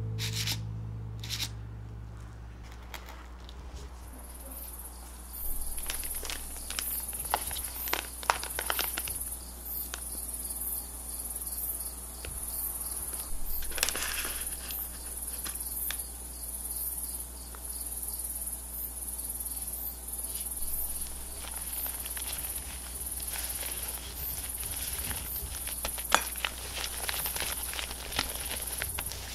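Balloon whisk beating whipped cream in a mixing bowl, a steady rhythm of scratchy strokes that starts a few seconds in, as purple sweet potato powder is mixed into the stiff cream. A few clinks and knocks come in between. Guitar music fades out at the start.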